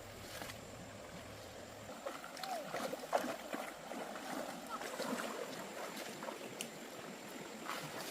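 Water sloshing and splashing, with irregular small splashes and gurgles, busier from about two seconds in.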